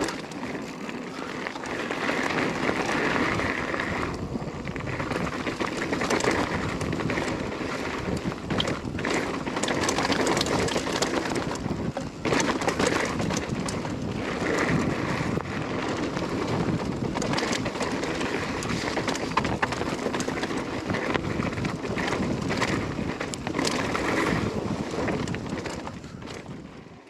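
Mountain bike riding down a dirt trail, with a steady rush of tyre and wind noise on the action-camera microphone and frequent rattles and clicks throughout. It fades out at the very end.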